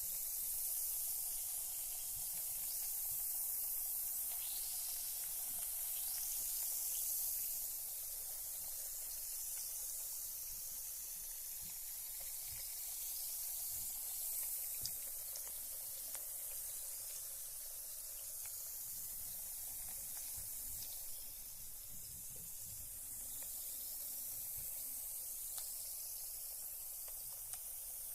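Carbonated bath bomb dissolving in bath water: a steady high fizz with scattered tiny pops of bursting bubbles.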